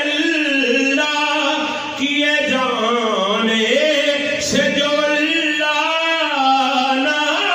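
A man chanting in a drawn-out, melodic voice, with long held notes that glide up and down in pitch, in the manner of devotional recitation.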